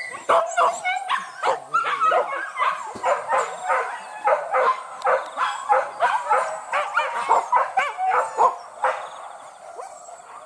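A pack of hunting dogs barking and yelping in quick, overlapping calls, baying in pursuit of a wild boar. The calls thin out near the end.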